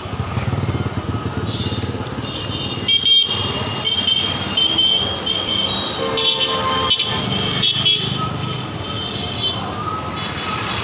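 Street traffic noise from passing motorbikes and other vehicles, a steady low rumble. High-pitched horns sound again and again through most of it.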